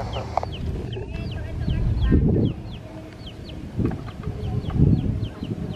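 Birds chirping: many short, high chirps falling in pitch, several a second. Under them is a low rumble that swells twice.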